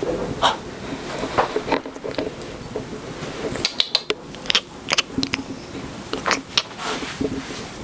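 A kitten making irregular close-up clicks, taps and scratchy rustling, many in quick succession, with a few brief higher chirp-like blips.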